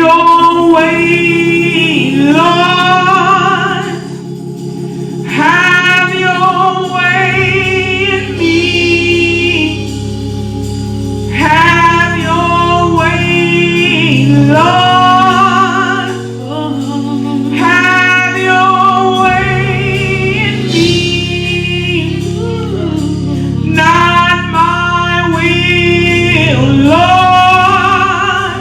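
Gospel singing with vocalists over sustained keyboard chords, in phrases a few seconds apart with short breaks between them.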